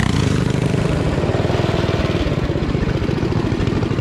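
Small single-cylinder mini bike engine running steadily under throttle as the bike rides along a dirt trail.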